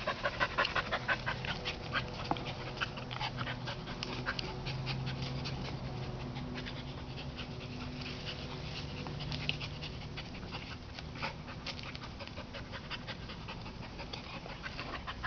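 Blue heeler panting hard and fast, about four to five breaths a second, loudest in the first couple of seconds and fainter after.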